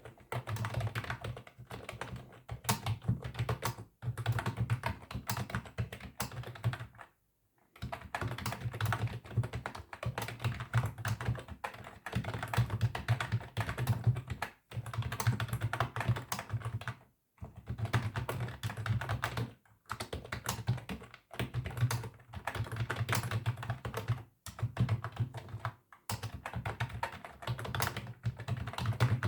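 Rapid typing on a computer keyboard: quick runs of key clicks broken now and then by short pauses.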